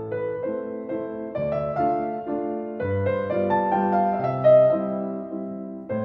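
Background piano music: single notes and chords struck one after another and left to ring.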